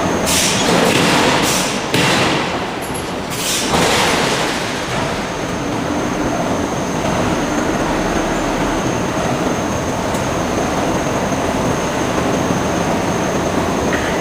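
Loud, steady machinery noise of a forge shop, with a thin high whine running under it. Three brief hissing blasts come in the first four seconds, and no hammer blows are heard.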